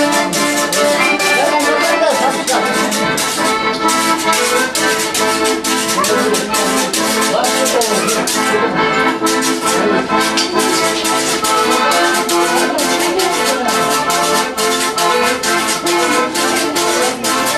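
Accordion played live: a fast dance tune in steady chords, over a quick, even beat of sharp percussive clicks.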